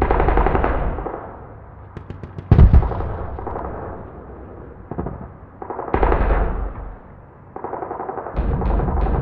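Film soundtrack of rapid percussive bursts that sound like machine-gun fire, coming in several stretches of a second or two, with a single heavy boom about two and a half seconds in.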